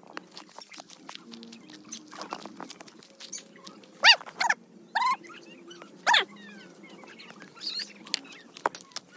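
An animal calling: four short, loud calls about four to six seconds in, over scattered faint clicks.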